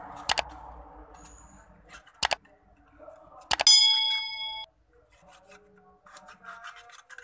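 Small parts and tools being handled on a workbench: a few sharp knocks, then a small metal object clinks and rings for about a second, followed by light clicking and rustling.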